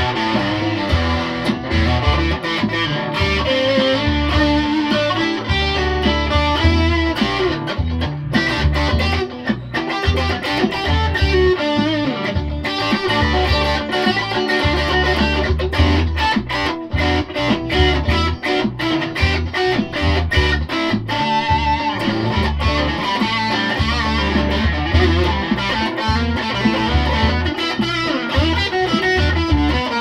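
Electric guitar played through an amplifier, a continuous riff with a steady pulse of strong low notes and busier melodic playing above.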